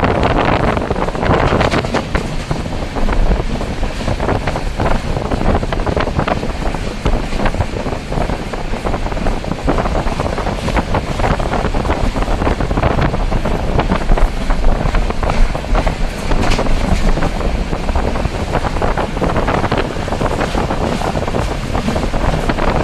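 Wind buffeting the microphone over the steady running noise of a moving train, with frequent short clicks and rattles.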